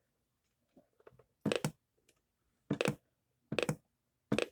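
Handling clicks: a few faint ticks, then four short, sharp clacks at irregular spacing of about a second, with near silence between them.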